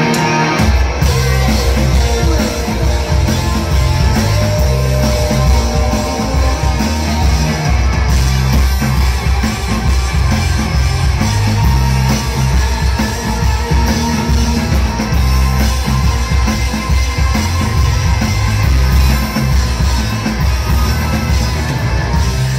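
Live rock band playing at full volume, with electric guitar, bass guitar and drum kit. The bass and drums come in about half a second in, over the guitar.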